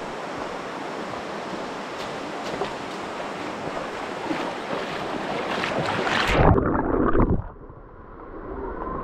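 River water rushing steadily, growing louder over the first six seconds or so. Around six and a half seconds in comes a loud low rumble, then the sound turns suddenly muffled and dull, with the high hiss gone.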